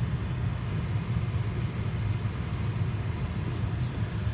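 BMW 3 Series heater blower motor running steadily as a low, even rumble of fan and airflow, with no squeak or rattle: its bearings are freshly greased and the earlier squeaking noise is gone.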